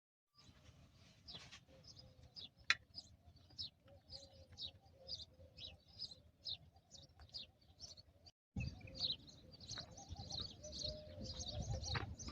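Many small birds chirping in quick, short calls over a low rumble, with one sharp click about three seconds in. The sound drops out for an instant about eight seconds in, then the chirping thickens.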